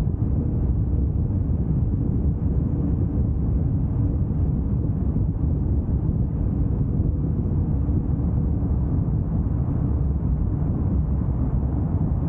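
Steady road noise of a car driving: a low, even rumble of engine and tyres with no changes or sudden sounds.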